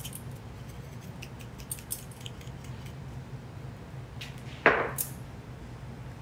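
A spice shaker being shaken over a food processor bowl, with a string of small ticks and rattles, then one louder knock about four and a half seconds in. A steady low hum runs underneath.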